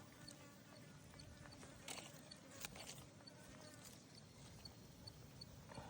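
Near silence: a faint high insect chirp repeating about three times a second, with a few soft clicks and taps around the middle and near the end.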